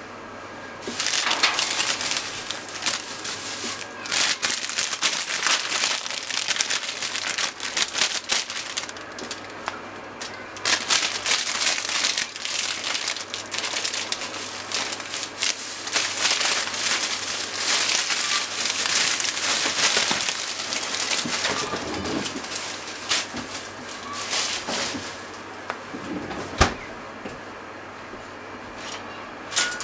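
Water at a boil in a pot on a gas stove, bubbling and crackling steadily, with a sheet of deep-fried tofu (aburaage) in it being blanched to draw out its oil. The bubbling grows quieter near the end, and one sharp knock sounds shortly after.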